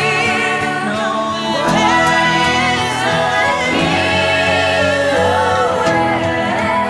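Choir singing slow, held notes with vibrato over sustained accompaniment, the chords changing about every two seconds.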